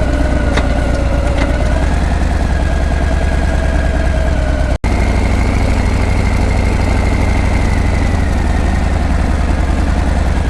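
Harley-Davidson Breakout's V-twin engine idling through its exhaust, a steady low rumble, with a momentary break about five seconds in.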